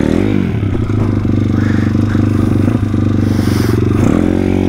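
Single-cylinder four-stroke engine of a YCF 150 SM pit bike running under throttle during a wheelie. It revs up and drops back at the start, and again about four seconds in.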